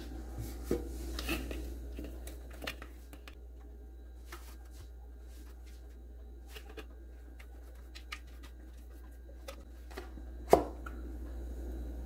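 Faint, scattered small clicks and taps of a blender jar and aluminium baking pan being handled while thick cake batter is poured into the pan, with one sharper knock about ten and a half seconds in.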